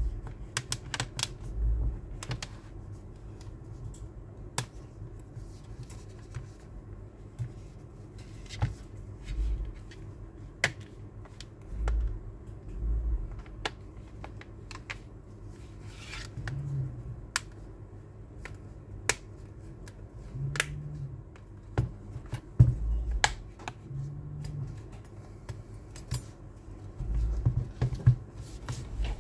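Irregular clicks and taps from a Samsung Galaxy Tab S2's back cover being handled, aligned and pressed into place by hand, with a dull thump every few seconds.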